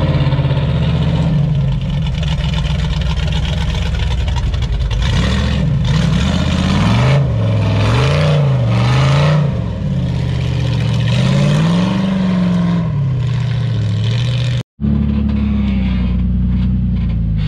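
Rock-crawler engines revving in surges under load while climbing a rock ledge, the pitch swinging up and down again and again, with stretches of rougher noise in the middle. A cut about 15 seconds in switches to another vehicle's engine with a steadier note.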